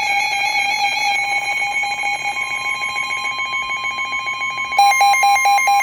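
Emergency Alert System alert tones: a steady electronic alarm tone with a faint rapid pulse, joined about five seconds in by a louder, fast beeping of about five beeps a second.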